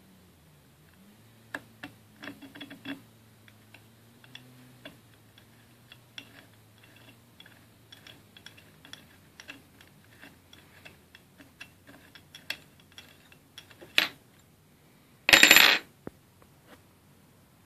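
Light metallic clicks and taps of small rifle parts being handled and worked on the magazine release. There is a sharp knock about 14 seconds in and a louder, half-second metallic clatter about a second later.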